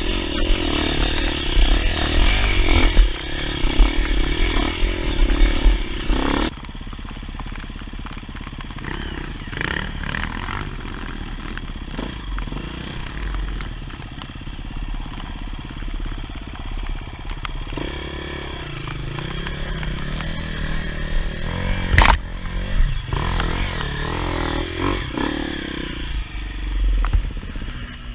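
Off-road dirt bike engine running, loud for the first six seconds or so, then dropping abruptly to a quieter, lower running for the rest; a single sharp click comes about 22 seconds in.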